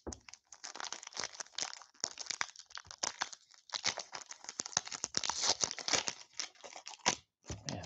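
Foil wrapper of an Upper Deck hockey card pack crinkling and tearing as hands work it open, a dense run of crackles with a couple of short pauses. The pack is hard to get into.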